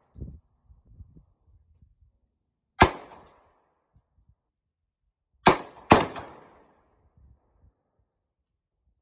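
Three handgun shots: one about three seconds in, then two about half a second apart a little past the middle. Each has a short echoing tail.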